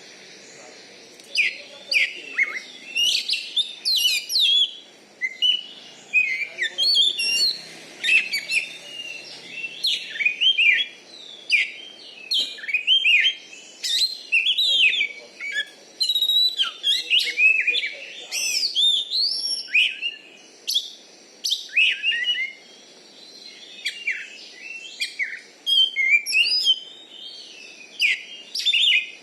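Oriental magpie-robin (kacer) singing loudly: a varied run of quick whistled and chirping phrases that glide up and down, delivered in bursts with short pauses.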